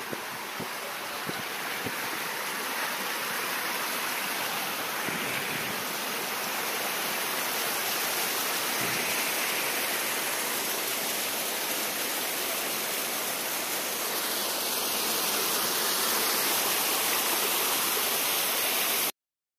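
Waterfall rushing over rock ledges: a steady, even wash of water that grows slightly louder toward the end, with a few low thumps in the first second or so. It cuts off abruptly just before the end.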